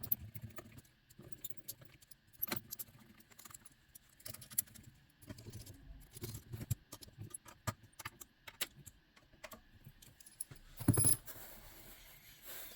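Small screws being driven back into a graphics card's cooler with a screwdriver: scattered light metallic clicks and taps, with a louder clatter about eleven seconds in.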